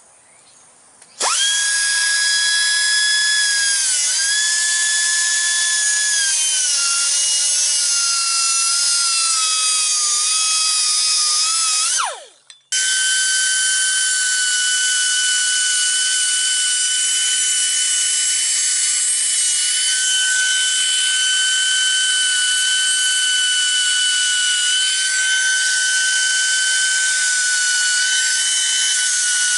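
Pneumatic air cutoff wheel whining as it cuts through the threaded steel pushrod of an air brake chamber, trimming it to length. It starts about a second in and sags slowly in pitch as the wheel bites. It stops briefly near the middle, then runs again at a steady pitch.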